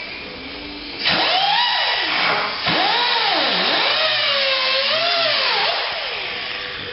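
A power tool starts about a second in and runs loud with a high whine whose pitch sags and climbs again several times as it is pressed into the work, easing off near the end.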